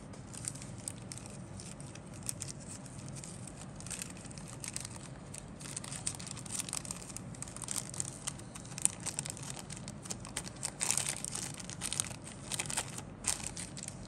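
Injection-moulded plastic model-kit sprues being handled and shifted against each other: scattered clicks, taps and rustles of plastic on plastic, busier near the end, over a low steady hum.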